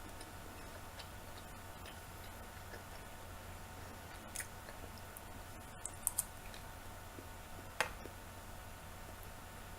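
Faint chewing of button mushrooms over a steady low hum, with a few short sharp clicks in the middle of the stretch and another near the end.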